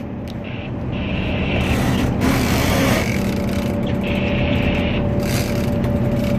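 Boat engine running steadily with a constant low hum. Bursts of hiss rise over it about two seconds in and again near five seconds.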